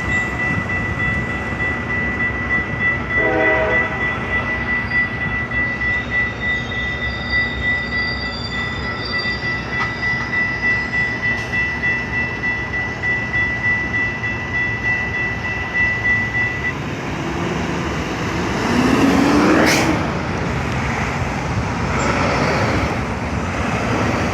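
Metra MP36-PH diesel locomotive and train at a station, with a short horn blast about three seconds in. A steady high-pitched tone cuts off suddenly about seventeen seconds in, and a loud rising sweep comes about nineteen seconds in.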